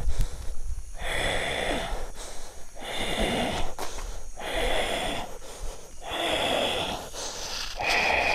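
A man in a trance breathing hard, in repeated forceful, rasping huffs about one every second and a half.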